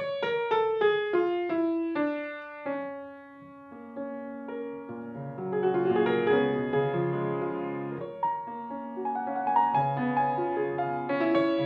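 Solo grand piano playing: a falling sequence of separate notes, a held note that dies away, then fuller, louder chords and runs from about five seconds in.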